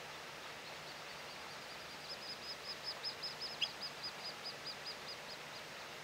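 A small bird calling a long run of short high notes, about five a second, swelling to its loudest about three seconds in and then fading away, with one sharp louder note in the middle, over a steady outdoor hiss.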